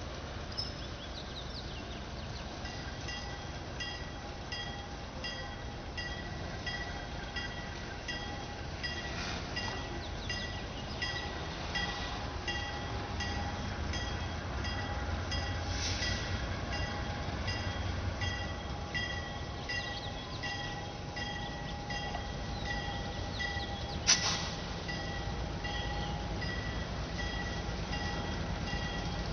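Diesel locomotive approaching slowly, its low engine rumble growing louder, while a warning bell dings about twice a second. A single sharp knock comes near the end.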